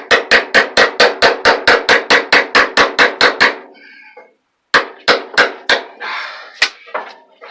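Hammer tapping a tight-fitting part into a Moen shower valve: a quick, even run of ringing blows, about five a second, that stops after about three and a half seconds, then a handful more blows later on.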